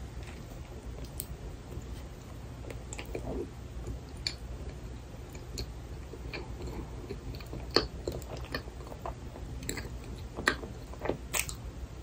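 Close-miked chewing of a frozen cream-filled milk bun, with wet mouth clicks and smacks scattered throughout; the sharpest clicks come in the last few seconds.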